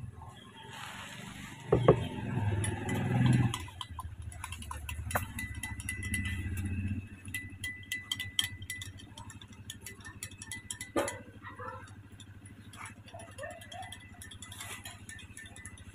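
A spoon stirring in a drinking glass, clinking against the glass in a quick, irregular run of light clinks while baby porridge is mixed. Before this, a low rumble with a sharp thump about two seconds in.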